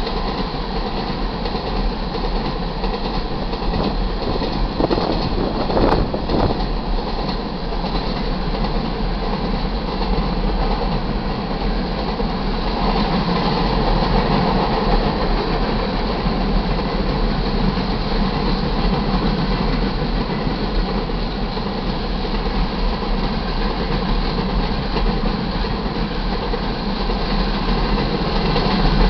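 Iron ore cars of a freight train rolling past, their steel wheels running steadily on the rails. There is a short sharp clank about six seconds in.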